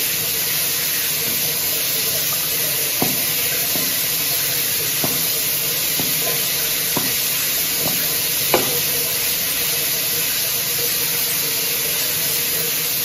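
Shower water running steadily, an even hiss of spray, with a few faint light taps.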